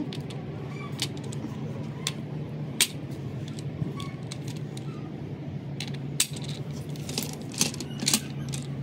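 Metal tools and parts clinking and tapping irregularly in a workshop, a sharp clink every second or so, the loudest ones near the end, over a steady low hum.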